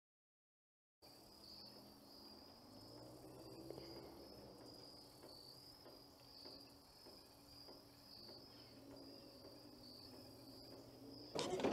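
Faint insects chirring in a steady, high, evenly pulsing trill, starting about a second in after dead silence.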